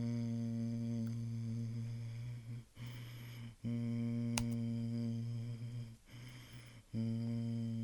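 Emergency Alert System attention signal: a harsh, buzzing two-tone alarm sounding in long stretches with a few short breaks, and one sharp click about halfway through.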